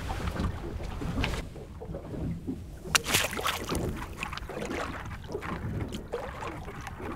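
A small weighted burley pot on a rope is dropped over the side of a boat and splashes into the sea about three seconds in. Underneath is a steady low noise of wind and water.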